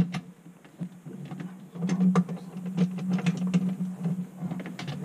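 Hands working a plastic PVC drain pipe and its slip-joint coupling at a garbage disposal outlet: irregular clicks, knocks and scraping of plastic, with a sharp click right at the start, over a low steady hum.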